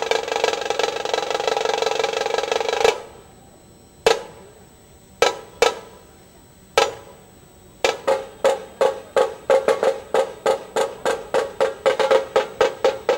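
Dhol-tasha drumming: a dense drum roll that stops suddenly about three seconds in. Four single, spaced-out strokes follow. Then evenly spaced strokes start up and quicken to about four a second.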